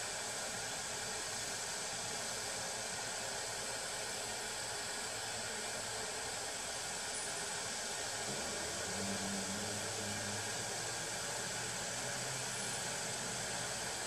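Steady hiss, with a faint low hum from about eight seconds in as the dual-axis solar tracker's drive motor tilts the panel array toward flat, into its high-wind parking position.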